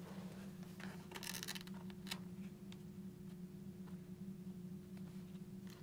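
Faint rustling and a few light clicks of hands pressing a helmet-communicator button microphone and its wire into a helmet's fabric liner, with the most rustling about a second in, over a steady low hum.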